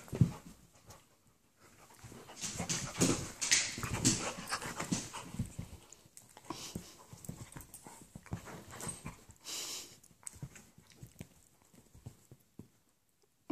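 A Labradoodle and an Italian greyhound play-wrestling on a couch: panting and scuffling of paws and fur against the cushions, busiest from about two to five seconds in.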